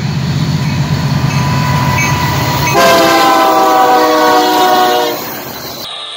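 Union Pacific SD70M diesel freight locomotive approaching with a low engine rumble, then sounding its multi-note air horn about three seconds in, a loud chord held for about two seconds that sags slightly in pitch as the locomotive passes close by.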